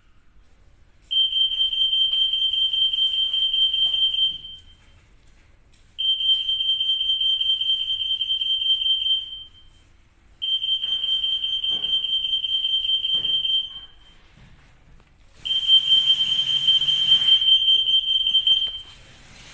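EAS RF anti-theft antenna gate alarm sounding: four long, steady high-pitched beeps of about three seconds each, a second or two apart. The alarm signals an active security tag detected between the pedestals.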